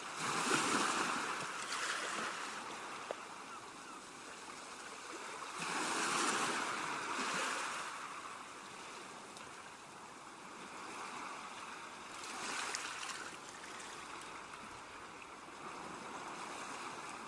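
Sea waves washing in, the hiss of the water swelling and easing about every six seconds.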